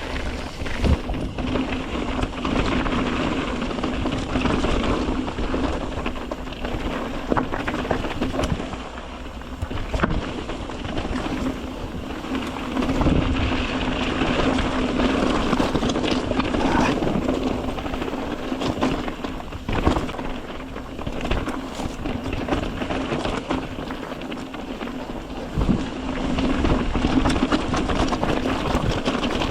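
Mountain bike ridden over a rocky dirt trail: tyres crunching on gravel and rock, the bike rattling over bumps with occasional sharp knocks, and wind buffeting the action camera's microphone.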